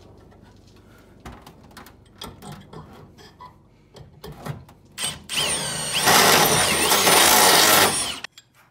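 A few light clicks and knocks from handling. Then about five seconds in, a cordless drill with an eighth-inch bit spins up and drills for about three seconds, its motor whine rising and falling in pitch, and it stops suddenly.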